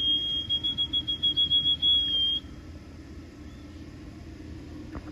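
A person whistling one long, steady high note to call returning racing pigeons down to the loft. The note cuts off about two and a half seconds in.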